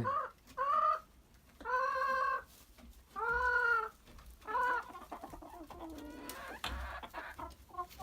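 Backyard chickens clucking: four drawn-out calls in the first five seconds or so, then only faint stirring.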